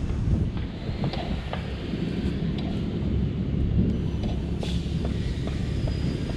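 Steady low rumble of road traffic passing on a nearby street.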